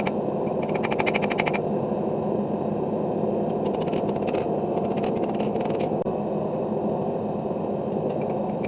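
Blacksmith's hammer on an anvil, ringing in three short runs of rapid metallic taps, each about a second long, over a steady rushing roar such as a forge fire or blower.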